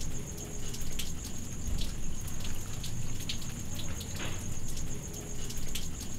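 Steady rain falling, with scattered sharp drop ticks over an even hiss.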